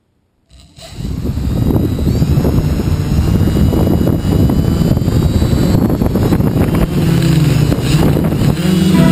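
TBS Discovery quadcopter's electric motors and propellers starting up about a second in with a brief rising whine, then running steadily in flight as a loud buzzing drone.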